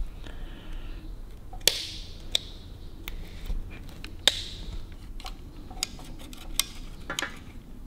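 Hand crimping pliers clicking as a connector is crimped onto a cloth-covered wire: about eight sharp, irregular clicks, two of them louder with a short rasp after.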